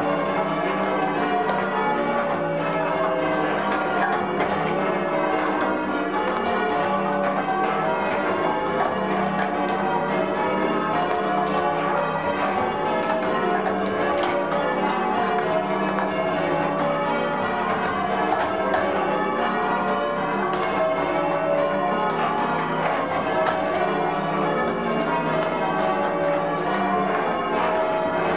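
Change ringing on the restored ring of eight church bells at St Mary the Virgin, Bampton: the bells strike one after another in an unbroken stream, their tones overlapping and ringing on. The bells hang on new headstocks with sealed bearings.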